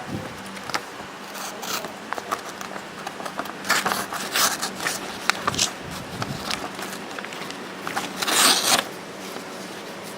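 A sheet of paper being sliced with the Sanrenmu WA741-A1 multi-tool's knife blade, in an edge-retention check after cardboard cutting. There are several short cuts about four seconds in and a longer one near the end.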